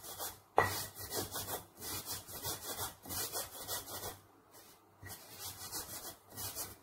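Stone pestle grinding crisp dry-toasted grated coconut in a stone mortar, with quick rough scraping strokes as the coconut is worked until its oil comes out. There is a sharp knock about half a second in, and the grinding pauses briefly a little after four seconds.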